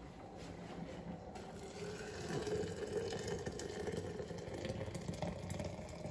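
Water poured from a kettle into a ceramic teapot to brew tea: a steady splashing stream that starts about a second in, its pitch rising slightly as the pot fills.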